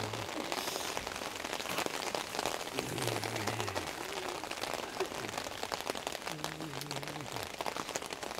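Heavy rain falling on an open umbrella held overhead: a dense, steady spray of small drop hits.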